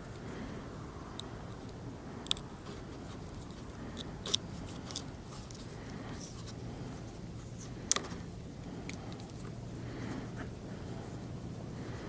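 A few sharp, scattered clicks and taps of hands working a motorcycle turn-signal's plastic housing and wiring, the loudest about two, four and eight seconds in, over a low steady hum.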